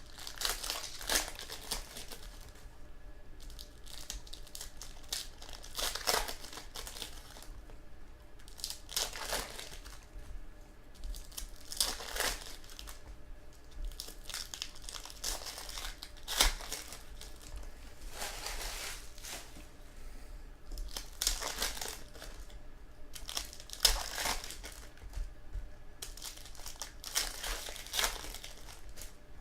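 Trading card pack wrappers being handled, crinkled and torn open, in repeated rustling bursts every few seconds.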